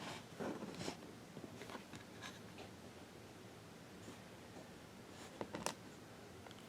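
Hands placing and pressing small clock numbers onto a wooden clock face with glue: faint taps and scratchy rubbing, in a cluster at the start and another about five and a half seconds in.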